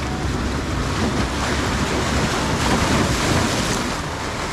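Sea surf breaking and washing around concrete tetrapod blocks of a breakwater, with a wave surging in louder about halfway through. Wind buffets the microphone.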